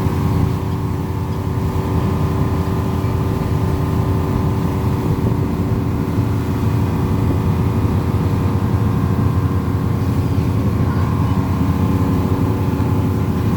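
Fishing boat's engine running steadily, a low rumble with a steady multi-tone hum over it.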